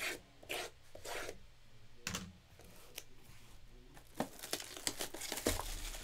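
Cellophane shrink wrap on a sealed trading-card hobby box being cut with a small blade and torn off: a few short scratchy strokes, then a run of crinkling near the end as the wrap is pulled away.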